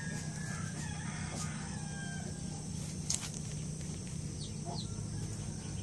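A rooster crowing faintly, over a steady low hum, with a single sharp click about three seconds in.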